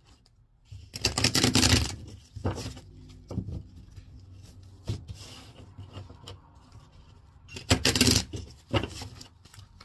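Tarot cards being shuffled by hand: two quick bursts of rapid card flutter, about a second in and again near the end, with a few light taps of cards between them.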